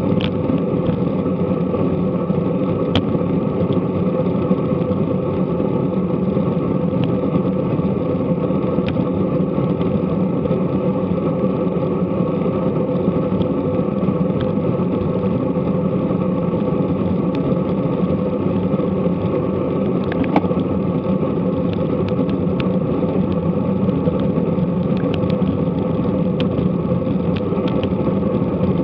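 Steady rushing and rumbling of wind and road noise on a bike-mounted action camera as a road bike rides along at speed, with a few faint clicks scattered through it.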